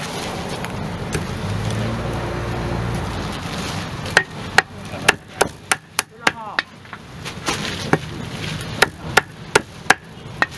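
Steel cleaver chopping grilled chicken on a thick wooden chopping block. From about four seconds in comes a quick run of sharp chops, roughly two to three a second, over steady background noise.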